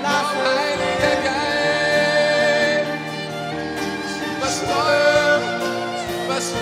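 Live worship music: a voice singing a slow, wavering melody over sustained instrumental chords.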